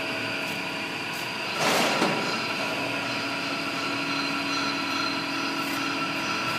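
TOS SN71C gap-bed engine lathe running its spindle at a higher speed: a steady whine of several held tones from the headstock gearing. A brief louder rush comes about two seconds in.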